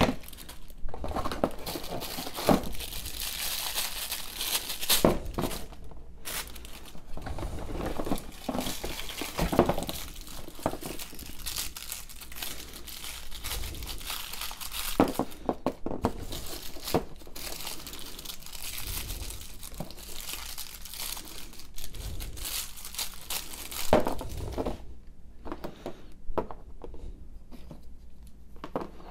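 Tissue paper crinkling and rustling as small plastic figures are unwrapped by hand, with a few sharp knocks along the way. Near the end the rustling stops, leaving only scattered light taps.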